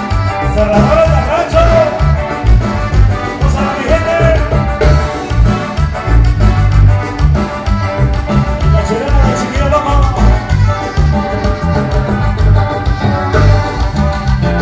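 Live band playing loud dance music through large loudspeakers, with a heavy, steady bass beat under a melody line.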